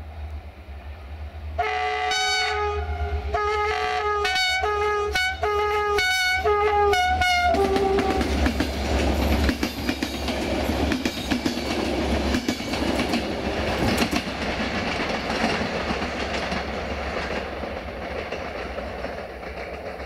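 Diesel-electric locomotive's two-note air horn: one long blast, then about six short blasts in quick succession, the last one lower in pitch. Then the locomotive and its passenger coaches rumble past, wheels clacking over the rail joints, slowly fading near the end.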